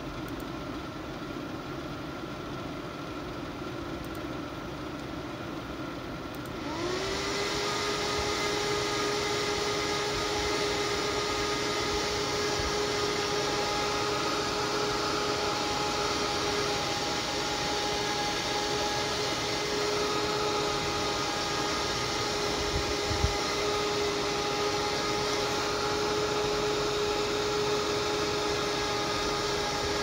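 Foxconn cooling fan, capable of 3800 rpm, running in a PC case, then spinning up about a quarter of the way in. Several whining tones rise briefly and then hold steady over a loud, even rush of air, and the fan keeps that high speed to the end. A single short knock comes about three-quarters of the way through.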